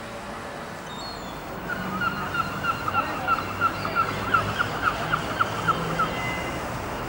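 A gull calls a quick series of repeated yelping notes, about three a second, from about two seconds in until near the end. Beneath it runs the low steady rumble of an approaching Class 47 diesel locomotive.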